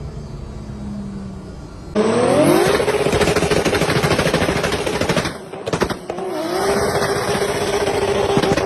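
Nissan Skyline R34 GT-R's single-turbo RB26 straight-six (stroked to 2.7 litres, with a full race exhaust) running lightly, then suddenly given throttle about two seconds in. Its pitch climbs fast and holds high with a harsh, rapid crackling rasp. It lifts off briefly a few seconds later with a couple of pops, then goes back on to high revs.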